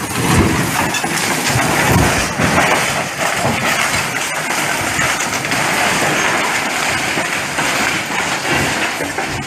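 Truck carrying an excavator rolling down a steep, overgrown bank: a loud, continuous rumbling crash of metal through brush, with heavy thuds in the first two seconds.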